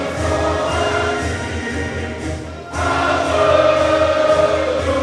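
Choral music: a choir singing over held instrumental notes, dipping briefly and then swelling louder a little under three seconds in.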